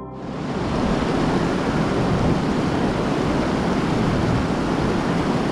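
Wind on the microphone: a steady, loud rushing that cuts in abruptly, with low gusty buffeting.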